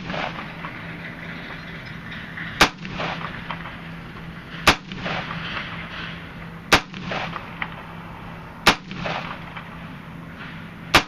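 DPMS AR-15 semi-automatic rifle in .223 firing single aimed shots, five of them at an even pace of about one every two seconds, each with a short echo trailing after it.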